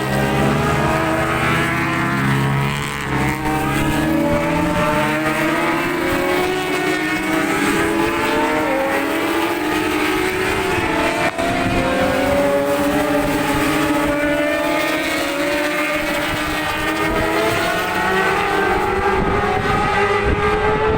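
A pack of racing motorcycles running at full race pace, several engines sounding at once. Their pitch climbs and drops again and again as the bikes rev out, change gear and pass by.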